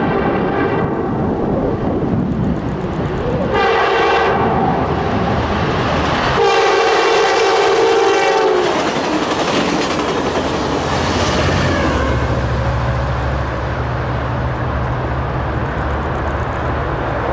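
Amtrak Piedmont push-pull passenger train passing with its multi-note chime horn sounding: one blast ends about a second in, a short blast follows, then a long blast that drops in pitch as the train goes by. Wheels clatter on the rails, then the trailing EMD F59PH diesel locomotive's engine drones steadily.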